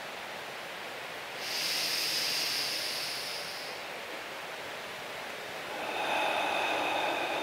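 A slow, deep breath taken on cue: a hissing inhale through the nose lasting about two seconds, then, after a pause, a lower, breathy exhale out through the mouth near the end.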